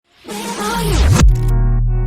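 Electronic intro music: a rising whoosh sweep building over the first second, then a hit and a deep held bass note with sustained tones.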